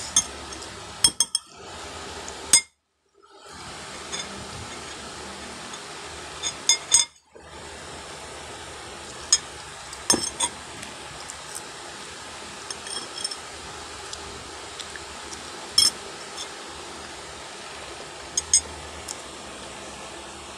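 Metal cutlery clinking against dishes while eating: scattered sharp clinks with a brief ringing, some in quick pairs or clusters, over a steady background hiss.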